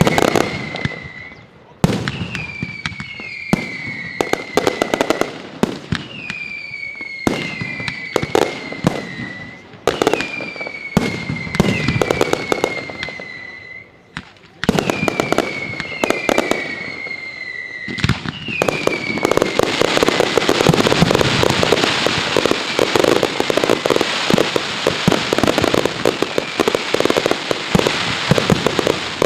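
Mascletà firecrackers: whistling fireworks going off every couple of seconds, each a falling whistle mixed with sharp bangs. About 18 seconds in they give way to a dense, continuous barrage of firecracker bangs.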